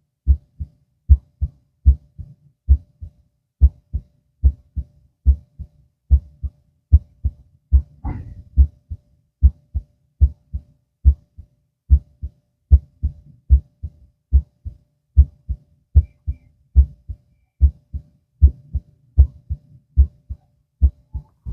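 Human heartbeat heard through a stethoscope: a steady rhythm of paired low 'lub-dub' beats, about 75 a minute. A brief scratchy noise comes about eight seconds in.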